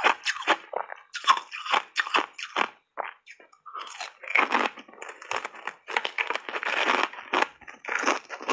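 Thin ice chips coated in milk and matcha powder being bitten and chewed: a fast run of crisp crunches, a short pause about three seconds in, then a fresh bite and steady crunching again.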